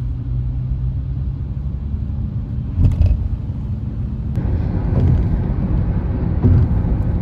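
Road and engine rumble of a car driving along a highway, heard from inside the cabin, with a few short bumps. A little over four seconds in, the tyre noise turns rougher and louder.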